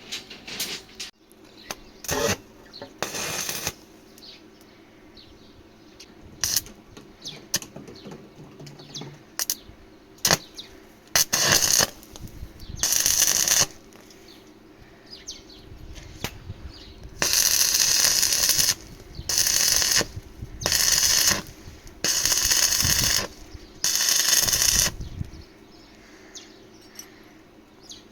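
Electric arc welding in short bursts, a string of quick tack welds, most of them bunched together in the second half, with metal clinks and knocks between.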